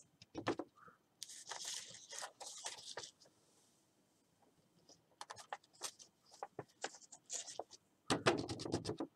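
Paper and card-making materials being worked by hand: a stretch of scratchy rubbing and scraping, then a run of small clicks and taps, and a louder rustle near the end.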